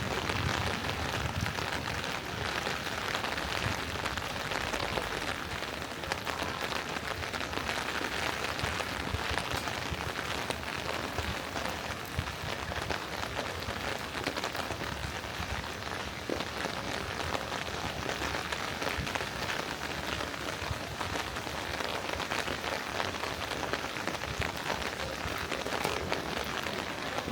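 Steady rain falling and pattering on street surfaces, a dense hiss of many small drops.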